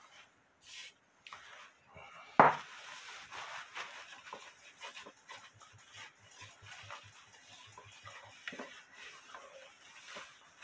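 Paper towel rubbing and rustling on the glass of a wooden-cased wall clock as it is wiped, with a run of quick back-and-forth strokes in the middle. A single sharp knock about two seconds in is the loudest sound.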